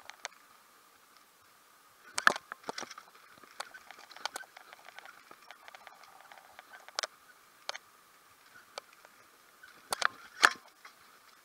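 Scattered clicks, knocks and rattles from a bicycle and its chest-mounted camera while riding, over a faint steady hiss. There are two louder clusters of knocks, about two seconds in and again near the end.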